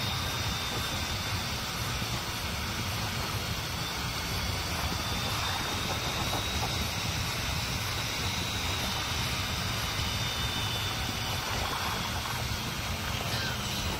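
Wind rushing over a motorcyclist's helmet at about 50 to 60 km/h, with the steady drone of a Honda ST1300 Pan European's V4 engine underneath, holding an even cruise.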